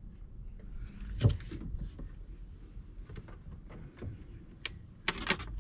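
Scattered knocks and clicks from parts and tools being handled during fuel and oil line work on a boat. The loudest is a single knock about a second in, and a quick cluster of sharper clicks comes near the end.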